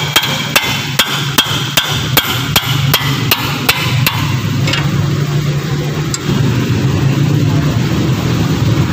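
Metal hammer blows on a steel rod held as a drift against a car's brake caliper, a steady run of sharp knocks at about two to three a second that stops about four seconds in: driving at a seized caliper slide pin. A steady low hum runs underneath.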